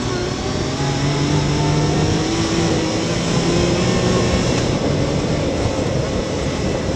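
Yamaha YXZ1000R side-by-side's three-cylinder engine pulling as the machine speeds up along a dirt trail, its note climbing in steps, over a steady hiss of tyres and wind.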